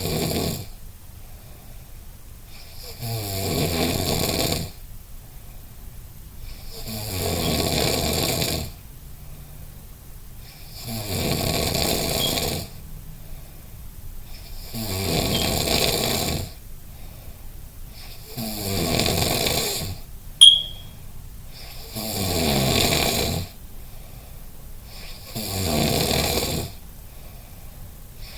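Steady, rhythmic snoring: about seven loud snores, each lasting a second and a half to two seconds and coming about every four seconds. A single sharp click sounds once about twenty seconds in.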